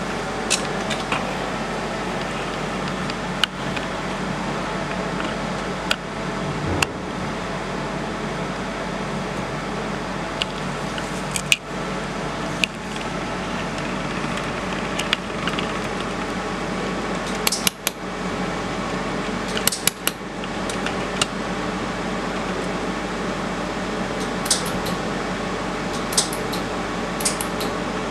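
Steady hum of a laser welding machine's cooling fan. Over it come irregular light metallic clinks and ticks as a thin sheet-metal model is handled, with several clustered in the second half.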